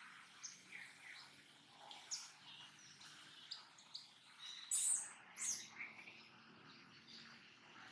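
High-pitched animal chirps and squeaks, short and irregular, several a second, loudest about five seconds in, over a faint low hum.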